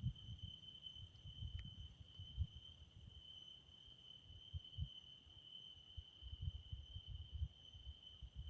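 Crickets trilling in an unbroken, steady, high-pitched chorus at dusk. Irregular low rumbles buffet the microphone on and off and are louder than the insects, most of all in the second half.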